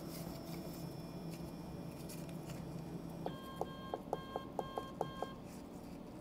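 Handheld control pendant of a Laguna iQ CNC router beeping with each key press as the bit is jogged down to zero on the workpiece: a quick run of about eight short beeps, roughly four a second, starting about three seconds in. Before the beeps a low hum with a faint high whine runs and stops about three seconds in.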